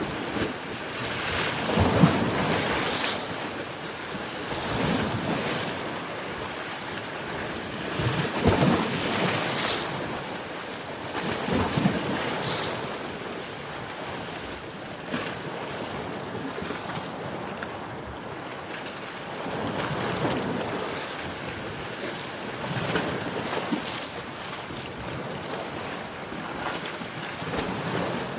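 Sea surf: waves breaking and washing up the shore, swelling and falling back every few seconds, with a hissing rush on the bigger breakers.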